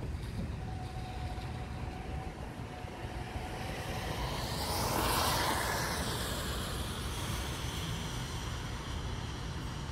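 A vehicle passing on the rain-wet road: tyre hiss swells to a peak about five seconds in and fades with falling pitch, over a steady low rumble.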